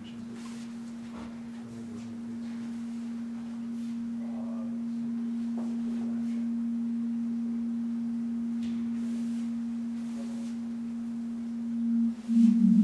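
A single steady electronic drone tone, pure like a sine wave, held unbroken and slowly swelling in loudness. About twelve seconds in it gives way to a deeper, rumbling gong-like sound.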